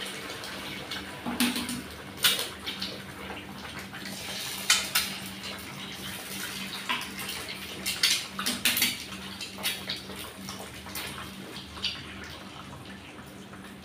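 Eggs frying in hot oil in a nonstick frying pan, a steady sizzle, with sharp clicks and taps at intervals as more eggs are cracked against the pan and dropped in.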